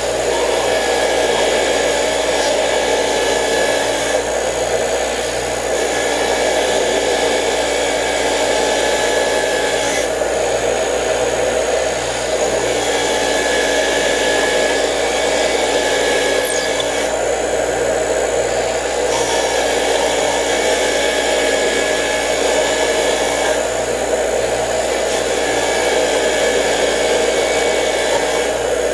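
Bench grinder running with a wire wheel while a trolling motor's armature is pressed against it, wire-brushing rust off the armature's laminated iron core. A steady motor hum under a scrubbing hiss that rises and falls every few seconds as the part is turned against the wheel.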